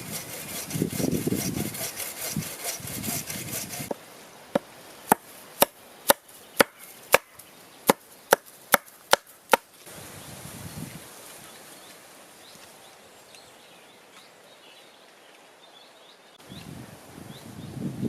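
Wood being worked by hand: a few seconds of rough scraping or sawing strokes, then a run of about a dozen sharp strikes on wood, roughly two a second. After that comes a quiet stretch, and the scraping strokes start again near the end.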